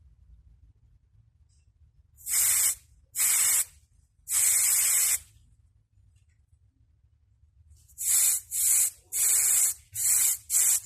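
Short bursts of air hissing out of a tire valve as its valve core is pressed, blowing dust out of the valve: three bursts, a pause, then five quicker ones near the end.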